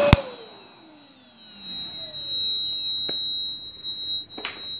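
A sharp snap as the output of a 230 V pure sine wave inverter is shorted. The inverter's short-circuit protection shuts it down, and the vacuum cleaner it was powering winds down, its motor whine falling in pitch and fading over about two seconds. A steady high-pitched tone carries on, with a few faint clicks near the end.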